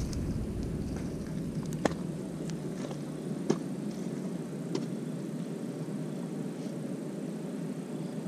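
A few light snaps and footfalls as a person steps through dry bankside grass and sits down, over a steady low outdoor background noise.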